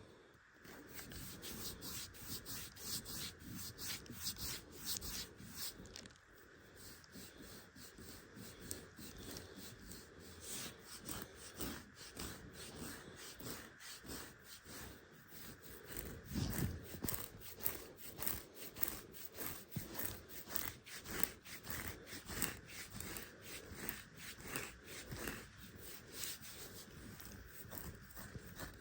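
Fingernails scratching dry, eczema-affected skin on the arms in rapid, repeated rasping strokes, several a second.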